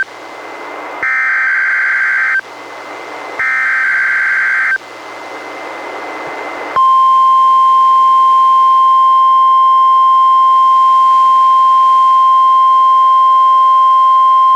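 NOAA Weather Radio weekly-test signal through a Reecom R-1630 weather radio's speaker. It begins with the last of one EAS/SAME header data burst, then two more harsh warbling digital bursts about two seconds apart, with radio hiss between. About 7 seconds in, the steady 1050 Hz warning alarm tone starts and holds loud.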